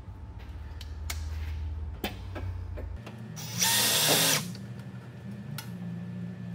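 Cordless drill running in one short burst of under a second, boring into the metal battery tray, with a few light clicks and knocks around it.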